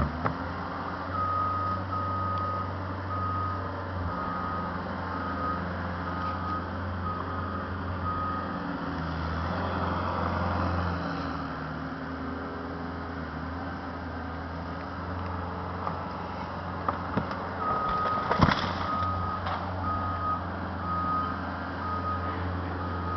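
Engine of a small tree-clearing machine running steadily, its back-up alarm beeping in two runs while it reverses. A sharp crack about eighteen seconds in.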